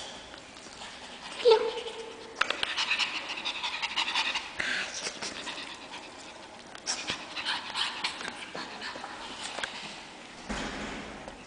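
Pekingese puppies play-fighting: panting and scuffling, with many small clicks. One short whine about one and a half seconds in.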